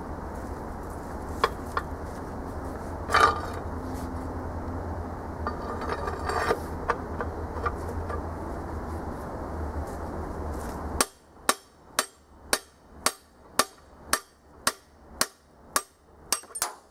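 Hammer blows on a bar driving a seized piston out of a corroded Chevy 305 V8 block. About a second into the last third, roughly a dozen sharp, ringing metal strikes come at about two a second. Before them there is only a steady low background noise with a few scattered knocks.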